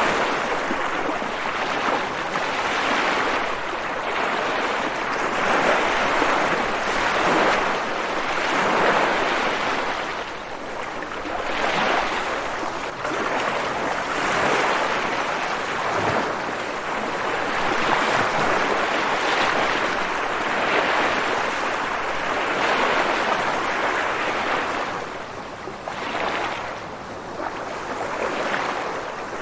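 Moving water rushing steadily, swelling and easing every couple of seconds like waves washing in.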